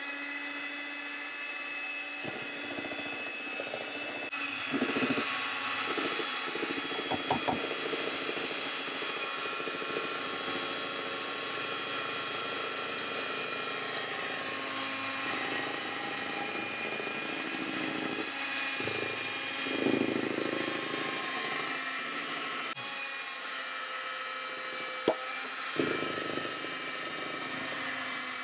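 Handheld electric kitchen mixer running steadily, its beaters working flour into a thick egg-and-sugar batter, with a few brief knocks along the way.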